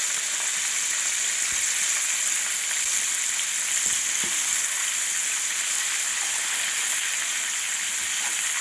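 Breaded chicken legs frying in hot oil in a cast iron skillet, a steady crackling sizzle, with a few faint knocks.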